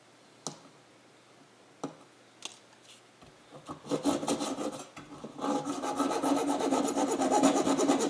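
Hacksaw cutting the reed notch into a whistle blank of wood over 1/4" brass tubing held in a vise: a few light clicks, then quick back-and-forth sawing strokes start about four seconds in and grow louder a second and a half later.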